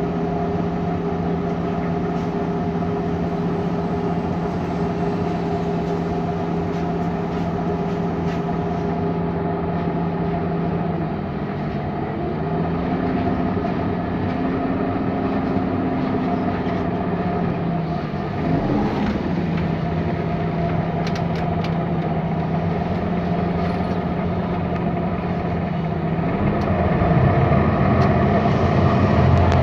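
MAN Lion's City bus's CNG engine (MAN E2876) and cooling fan running steadily as heard on board while driving. The steady hum changes pitch a few times as the speed changes and grows louder near the end.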